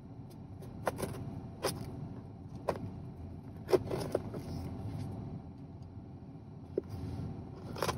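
Metal pick of a pipe tool scratching and cutting through packing tape on a cardboard box: a handful of short, sharp scrapes about a second apart.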